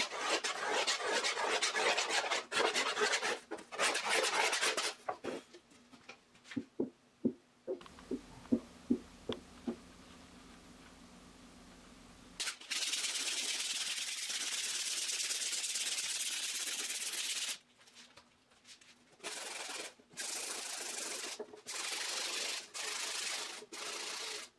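Wood being scraped and shaved on the inside of a carved mandocello back plate with a small hand tool. Then about a dozen light taps on the plate, each ringing briefly on a tone the tuner reads as B♭ (tap-tuning the plate). Then sandpaper rubbing over the wood, first one long run of strokes, then shorter strokes with pauses.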